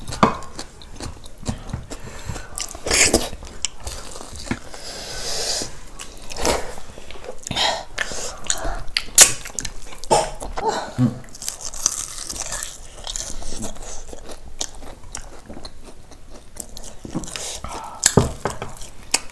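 People chewing and biting into crisp fried food, deep-fried pork and potato chops, with frequent irregular crunches.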